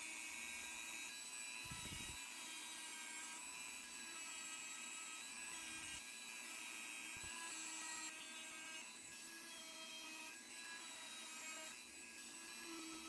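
Dremel 4000 rotary tool running at high speed with a small pointed, rounded bit, a thin steady whine as it engraves lines into stainless steel through a vinyl template.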